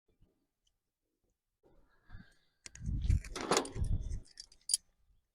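Hand tools being handled: a burst of clatter and knocks with sharp clicks about three seconds in, then a single sharp click near the end.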